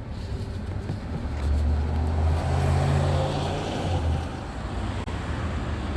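Low rumble of a motor vehicle, swelling from about a second and a half in and easing off after about four seconds.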